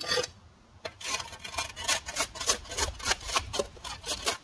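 Rapid rasping scrapes, several a second, starting about a second in after one short scrape at the very start.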